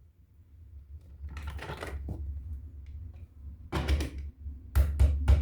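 Plastic toys and packaging being handled: a rustle a little over a second in, then a run of sharp clicks and knocks, loudest near the end.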